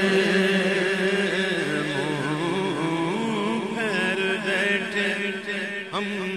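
Unaccompanied Urdu naat singing: a lead male voice draws out long, wavering melismatic notes over other men's voices holding a steady note.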